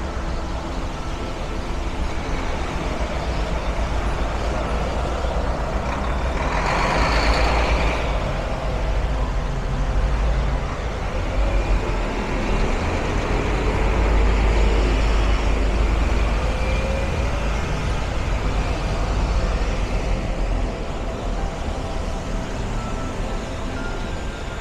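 City street traffic on wet roads: a steady low rumble of trucks, buses and cars running. A short, loud hiss comes about seven seconds in, and an engine note rises in pitch around the middle.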